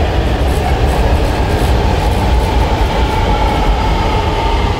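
Lahore Orange Line electric metro train pulling in along the station platform: a loud, steady rumble with a faint whine over it.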